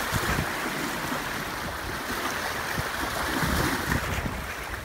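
Steady wash of surf on the beach, with wind buffeting the microphone in uneven low gusts.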